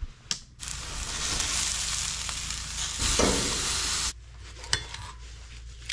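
Steaks sizzling on a grill grate: a steady, dense hiss that cuts off suddenly about four seconds in. A sharp click comes just before the sizzling starts.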